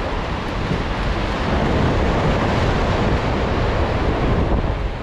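Sea waves surging and washing among the concrete tetrapods of a breakwater, a steady rush of surf, with wind rumbling on the microphone.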